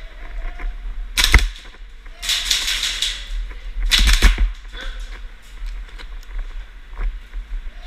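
Airsoft guns firing indoors in several short bursts and single shots: sharp, clicky reports with the loudest bursts about a second in and again about four seconds in.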